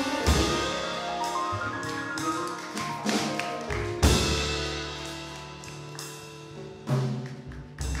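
Small jazz combo playing a slow piece: two trumpets and a saxophone hold chords over piano, guitar, upright bass and drums. There is a sharp accented hit about four seconds in and another near the end.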